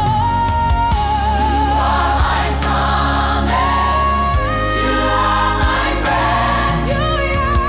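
Gospel worship music: held sung notes with vibrato over sustained chords and a steady bass.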